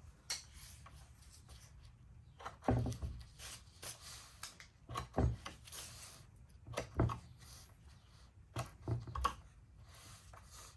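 Handling sounds from cutting 550 paracord with a slip joint pocketknife: a series of irregular short knocks and rubbing, scraping sounds of the cord and knife against a surface.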